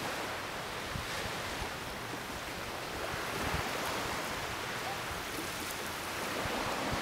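Small waves washing on the shore, with wind, as a steady rushing noise that rises and falls gently.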